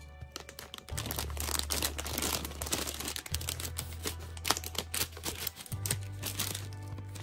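Scissors snipping across the top of a plastic candy bag in a run of short crisp clicks, with the bag crinkling as it is handled, over soft background music with a steady low bass line.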